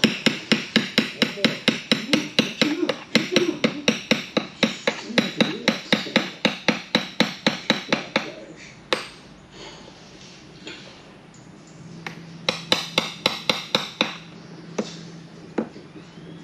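Quick, even hammer taps, about five a second for some eight seconds, then a pause broken by a few single taps, then another short fast run. A faint steady hum comes in near the end.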